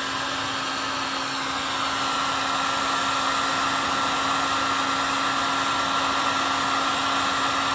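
Heat gun blowing steadily, with a constant hum and a thin whine over the rushing air, as it shrinks heat-shrink tubing onto a heavy red battery cable lug.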